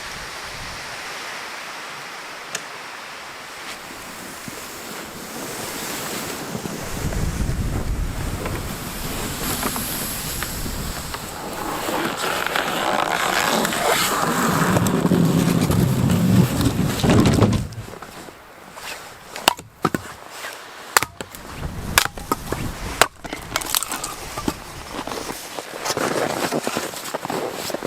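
Wind buffeting the microphone, swelling into a loud low rumble that cuts off sharply partway through. A run of sharp crunches and clicks follows.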